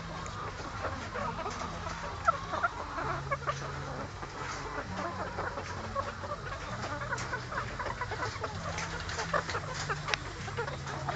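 A flock of chickens clucking and calling continuously, many short overlapping calls at once, over a low steady hum.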